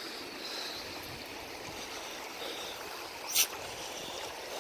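Steady rush of flowing river water, with a brief sharp hiss-like noise about three seconds in.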